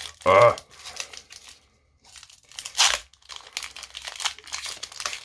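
Foil Pokémon TCG booster pack wrapper crinkling as it is worked open by hand, with one loud tear near three seconds in. A brief wordless vocal sound comes about half a second in.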